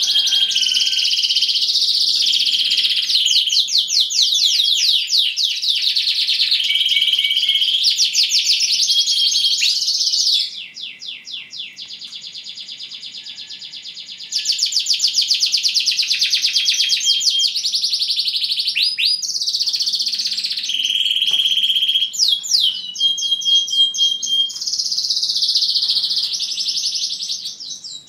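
Yorkshire canary singing a long continuous song of fast trills and held whistled notes. About ten seconds in the song drops to a softer passage for about four seconds, then picks up loudly again.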